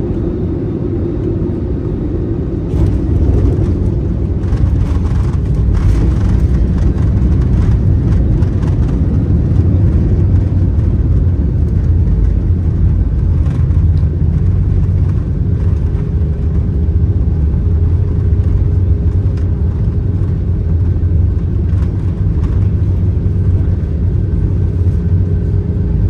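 Cabin noise of an Airbus A320 during landing: a loud, steady low rumble of engines and airflow. It grows louder about three seconds in, with rattling over the next several seconds.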